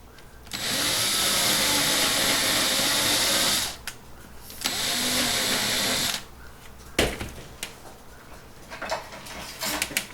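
Power drill running in two bursts, the first about three seconds and the second about a second and a half, drilling out the rivet post of a die-cast toy car to take it apart. A sharp knock and a few light clicks follow near the end.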